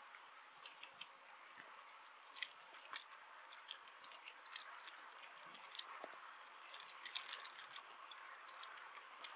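Bicycle rolling along a path, with a faint steady hiss and scattered light ticks and rattles, clustered about seven seconds in.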